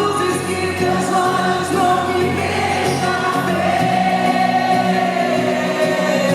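Live band music with singing: long held, slightly wavering sung notes over sustained accompaniment, choir-like in fullness.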